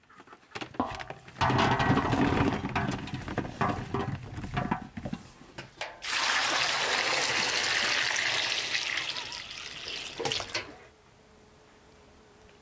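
Water poured from a metal bucket splashing over green tomatoes in a metal basin: a steady rush for about five seconds that stops suddenly near the end. Before it come a few seconds of clattering and knocks.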